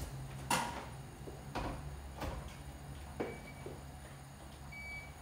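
Kitchen cookware and cabinets being handled: four separate knocks and clunks, then two short high electronic beeps.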